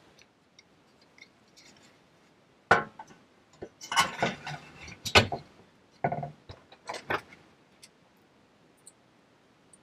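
Tracks and parts of a toy bulldozer being handled and fitted together: a series of sharp clicks and knocks, bunched between about three and seven seconds in.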